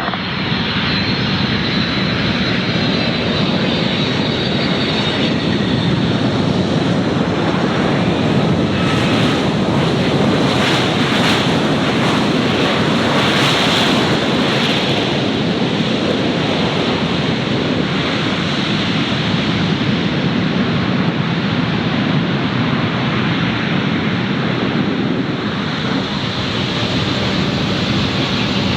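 Airliner jet engines running with a loud, steady rushing noise as a plane passes, swelling to its loudest about halfway through and easing slightly near the end.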